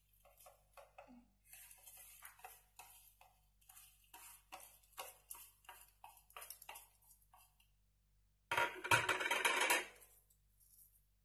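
Wooden chopsticks tapping and scraping fried shallots and garlic off a plate into a blender's chopper bowl: a run of light clicks and taps, then a louder scraping rustle for about a second and a half near the end.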